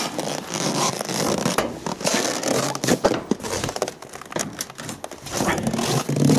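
Footsteps crunching and squeaking in dry snow at about −43 °C, mixed with rustling of winter clothing, in irregular noisy bursts.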